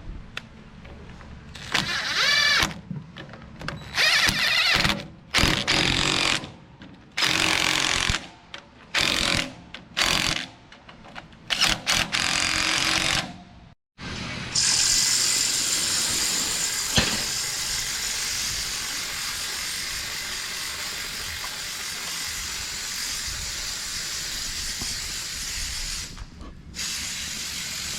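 Cordless power tool (drill or impact driver) run in short bursts, its whine rising and falling, as bolts on the header's sickle guards are driven. About halfway through, after a brief break, a steady hiss takes over.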